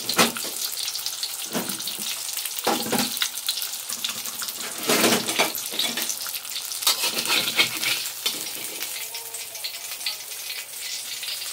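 Hot oil sizzling and crackling around a whole fried fish in a wok, with several short louder crackles spread through, settling a little toward the end. The fish is cooked through and the burner has just been switched off.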